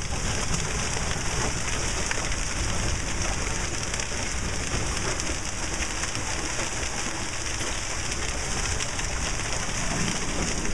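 Hail falling with heavy rain, pelting the street, lawn and concrete walk: a steady, dense patter of many small hits.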